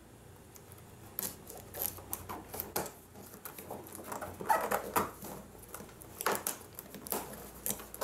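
Hands opening a cardboard box with scissors: irregular clicks, scrapes and rustles of cardboard and packing tape.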